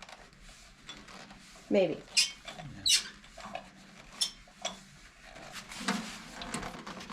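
Rusty blade-height and tilt mechanism of an old Craftsman table saw squeaking and clinking in short bursts as its handwheel is worked to free it up from years of rust.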